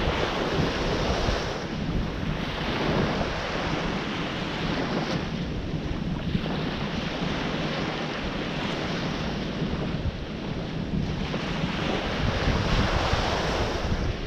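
Ocean surf: waves breaking and washing in, swelling and easing every few seconds, with wind rumbling on the microphone.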